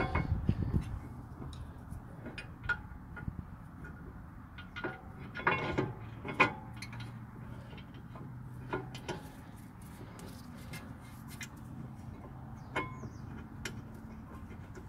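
Scattered metallic clicks and knocks of a brake caliper bracket being handled and seated over a brake rotor. A few louder knocks come just after the start, around six seconds in, and again near the end.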